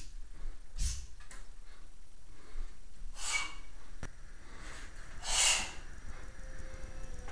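A person's forceful exhalations while working through sword movements: three rushing breaths about a second in, a third of the way through and past the middle, with one light click in between.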